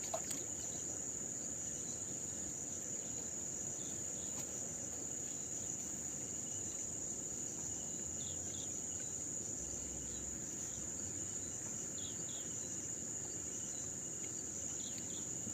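Insects trilling steadily in one unbroken high-pitched drone, over a low even background rush, with a few faint short chirps now and then.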